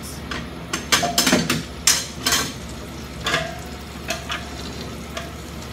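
A utensil scraping and tapping against the inside of a nonstick cooking pot as debris is cleared out of it: a quick run of short scrapes and knocks in the first couple of seconds, then a few more spaced out.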